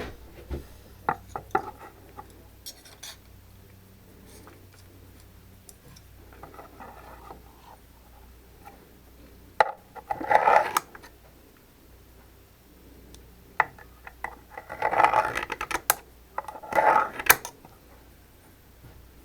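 Hard objects being handled and knocked together: scattered clicks, then short bouts of clattering and rattling about ten seconds in and twice more near the end.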